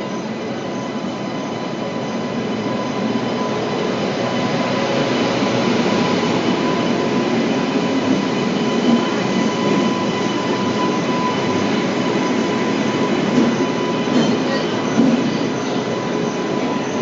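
Electric-hauled passenger train rolling slowly into a station platform: the steady running noise of the locomotive and then its coaches passing, with a thin steady whine and a couple of clanks late on.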